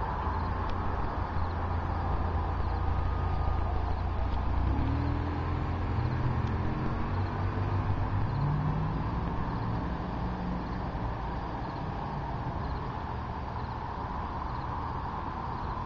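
A motor vehicle engine is heard passing over a steady outdoor rumble. The engine's pitch rises and falls between about five and ten seconds in.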